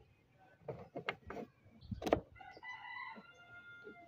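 A metal case handle and its brackets knock and click against a sewing-machine case lid: a few sharp knocks, the loudest about two seconds in. Then a rooster crows for about a second and a half near the end.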